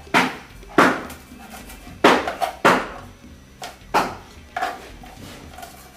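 Kitchen knife chopping bay leaves on a plastic cutting board: about six sharp, irregularly spaced knocks of the blade against the board.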